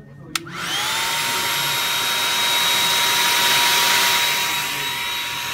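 Hair dryer switched on with a click, its motor whining up in pitch over about half a second and then running steadily with a high whine over the rush of blown air. It gets a little quieter near the end.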